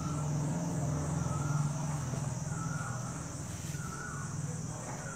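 Insects trilling steadily in the background over a low steady hum, with a few short squeaks from a marker writing on a whiteboard.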